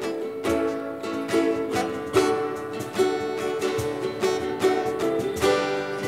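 Ukulele and acoustic guitar strumming chords in an instrumental song intro, with a fresh strum roughly every second.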